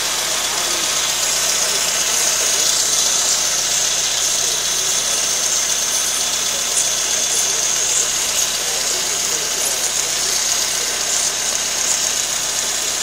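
Fiat Tempra's carburetted petrol engine idling steadily, heard up close in the engine bay, with a steady high hiss over the running.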